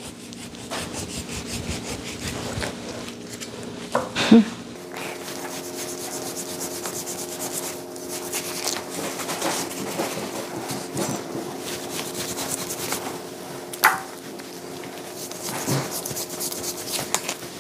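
Knife slicing and scraping through raw beef sirloin on a cutting board, trimming away the fat: irregular rubbing and scraping with a few sharp knocks. A steady hum runs underneath from about five seconds in.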